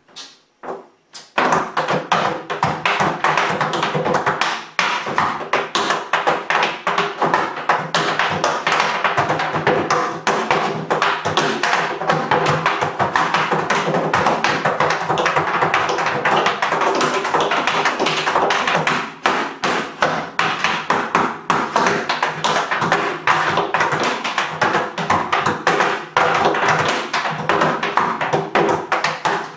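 Tap shoes striking a portable folding tap board in fast, continuous rhythmic patterns of crisp taps, starting about a second in.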